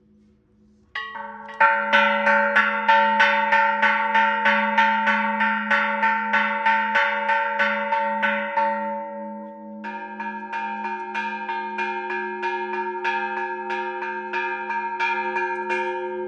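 Church bells rung in a repique: several fixed hanging bells struck rapidly by clappers pulled on ropes, about three to four strokes a second with the tones overlapping. A first run starts about a second in and breaks off near ten seconds, then a second run follows with a different mix of bells, the lower ones more prominent.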